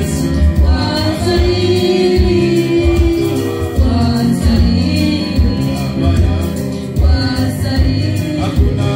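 Gospel worship music: voices singing over a steady bass beat.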